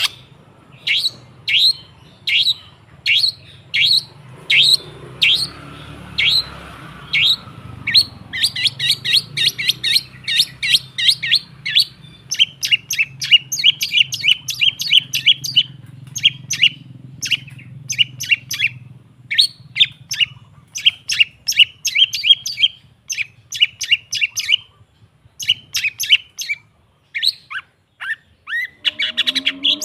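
Long-tailed shrike song: sharp, repeated high chirps, about two a second at first, then from about eight seconds in faster chattering runs broken by short pauses.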